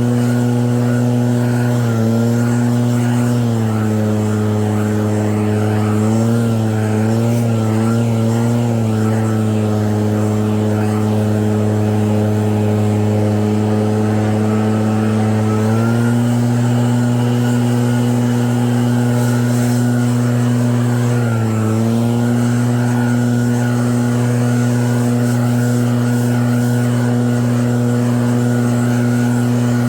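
Snowblower engine running steadily with a constant pitched hum. Its pitch drops about two seconds in, wavers for a few seconds, and picks back up later, with another short dip near the end.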